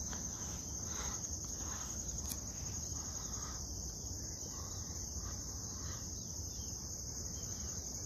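Crickets chirring in a steady high-pitched drone over a low background rumble.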